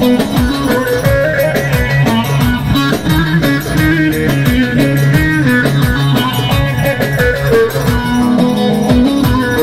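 Live folk dance music on a bağlama (long-necked Turkish lute), strummed in quick, even strokes while a melody line moves over a steady low drone.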